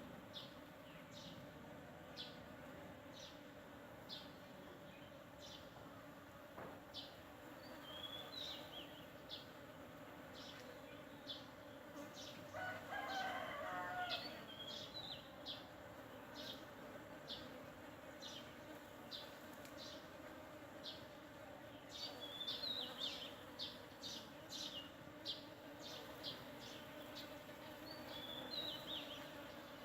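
Honeybees buzzing at the blossoms of a flowering sandpaper vine, a steady hum. Small birds chirp repeatedly over it, and a rooster crows once about thirteen seconds in, the loudest sound.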